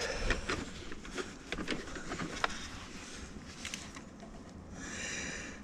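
Light clicks and rustling of a wiring harness and plastic trim being handled and tucked into place, with a zip tie pulled tight in a short ratcheting rasp about five seconds in.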